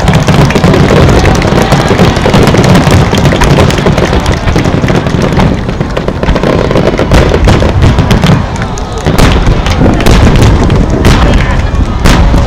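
Aerial firework shells bursting in quick succession: a near-continuous barrage of booms and crackle, with separate sharp bangs standing out in the last few seconds.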